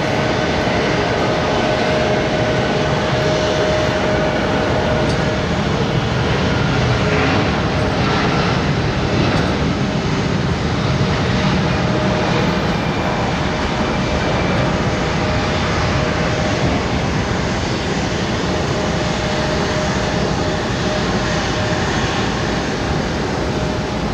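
Airbus A330-300's Rolls-Royce Trent 700 turbofans at takeoff thrust, running loud and steady through the takeoff roll and climb-out, with a steady high whine over the broad engine noise that fades in the second half.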